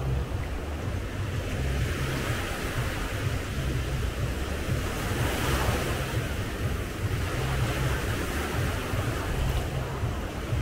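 Sea waves breaking and washing on a sandy beach, the surf swelling about halfway through, with wind buffeting the microphone as a fluttering rumble.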